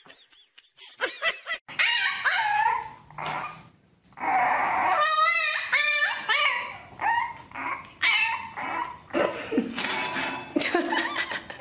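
Puppies yipping, barking and whining in a string of short, high calls.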